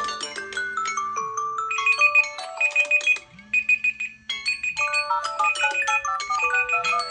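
Samsung phone and tablet ringtones and alarm tones playing over each other: mallet-like melodic notes, a repeating high beep in quick groups of about four, and a held low tone, with a short lull about three seconds in.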